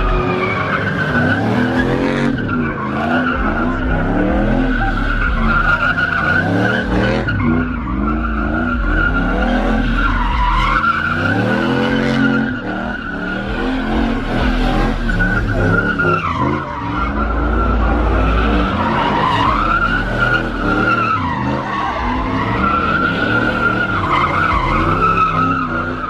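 A car doing donuts on asphalt: its tyres squeal continuously, the pitch wavering and dipping every few seconds, over the engine revving up and down.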